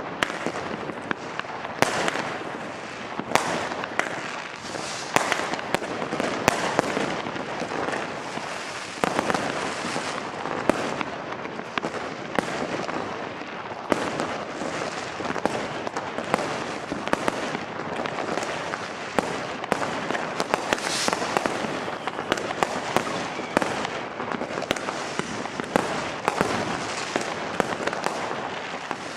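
Fireworks and firecrackers going off all around without pause: a continuous rumble of many distant bangs, broken by frequent sharp, louder cracks from closer by.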